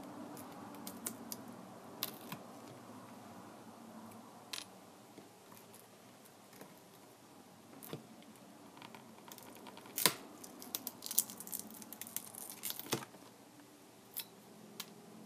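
Scattered small clicks and light rustling from hands and tools working on the tablet's parts, with a quicker run of clicks about ten to thirteen seconds in.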